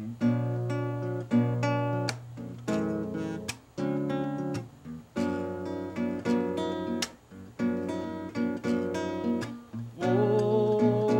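Acoustic guitar strumming and picking chords in a Brazilian popular song. Near the end a voice comes in on a long held note.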